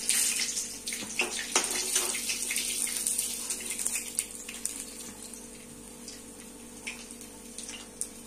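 Hot oil sizzling steadily around bread-and-paneer balls deep-frying in a kadhai, with a few light clicks of a metal slotted spoon in the first couple of seconds.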